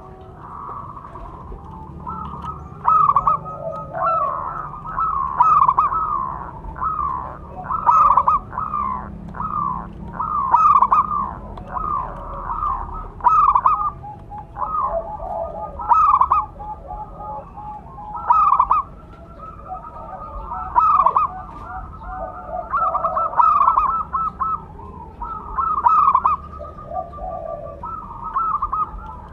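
Zebra doves (perkutut) cooing: quick rolling coo phrases repeated every second or two, with calls at a lower pitch overlapping them, as if more than one dove is answering.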